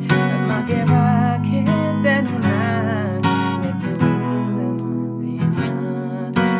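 Steel-string acoustic guitar strummed with a pick, playing chords in a steady pattern.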